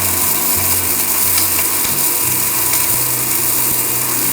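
Electric blender (mixer grinder) motor running at full speed: a loud, steady rushing whir, "like a storm".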